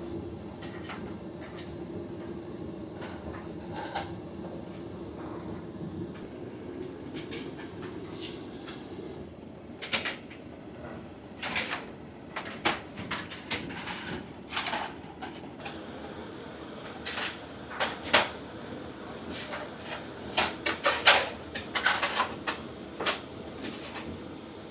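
A steady low hum for the first few seconds, a brief hiss about eight seconds in, then a run of irregular sharp knocks and clatters, thickest near the end.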